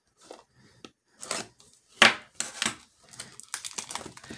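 Scattered clicks and knocks from cards and packaging being handled, with one sharp knock about two seconds in, then a plastic card-pack wrapper starting to crinkle near the end.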